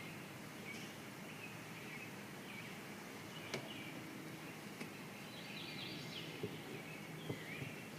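Honeybees humming around an open hive, with birds chirping in the background and a few light clicks of hive parts being handled.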